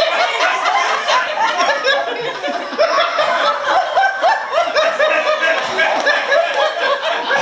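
Several people laughing and chuckling together, their laughs overlapping.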